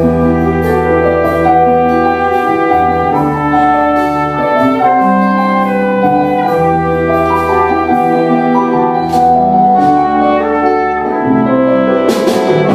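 Instrumental passage of a pop song, without vocals: a melody in long held notes over a steady sustained bass.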